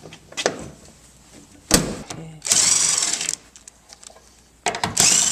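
Power drill spinning a size 12 socket to back out the door hinge bolts, in two whining bursts of about a second each, with a sharp click shortly before the first.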